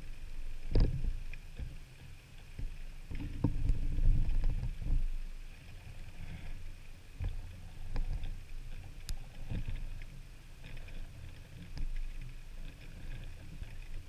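Water lapping and sloshing, with irregular low knocks and thumps, loudest about a second in and again around three to five seconds in.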